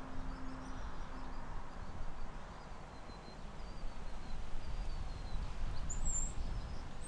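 Outdoor ambience under a tree: small birds chirping, with a run of thin, high notes and then a sharper chirp about six seconds in, over a low background rumble.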